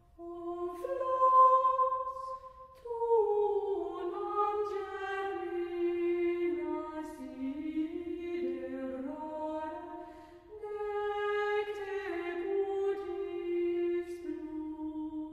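Background music of unaccompanied voices singing slow, long-held notes, several parts at once in a chant-like style.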